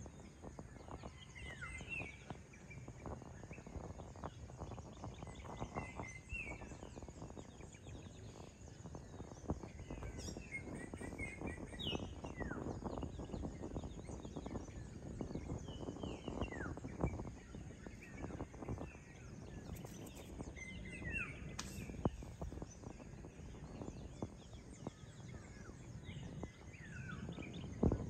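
Dawn outdoor ambience: birds chirping with short falling calls over a steady low background rumble. A brief thump near the end.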